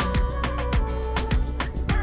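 Background music with a steady, fast beat, bass and pitched instrument lines.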